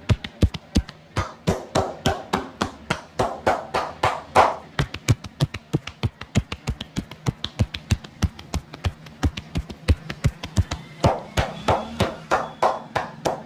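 Massage percussion: a barber's hands tapping and slapping rapidly on a customer, about five quick strikes a second, some hollow-sounding and some duller.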